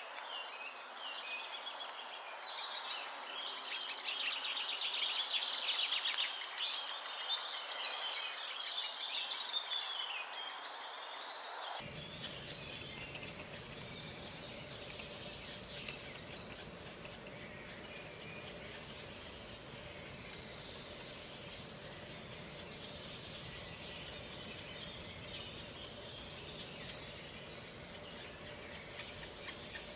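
Purple martin nestlings chirping in the nest, a dense run of high calls for about the first twelve seconds. After a sudden cut, fainter chirps go on over a steady background hiss.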